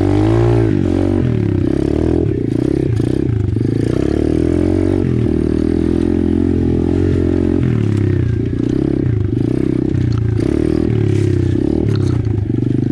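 Small dirt bike engine revving up and down, with its pitch climbing sharply at the start, as the bike picks its way up a rough trail in low gear. Scraping and clattering from the bike working over roots and through brush are heard over the engine.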